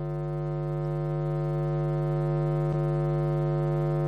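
A church keyboard holding one sustained organ-style note, steady in pitch and slowly growing louder, with one faint click a little before the end.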